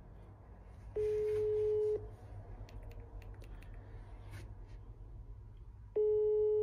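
Telephone ringback tone of an outgoing call still ringing unanswered: a steady single tone sounding for one second, then again about five seconds after the first one started, in the standard European one-second-on, four-seconds-off ring pattern.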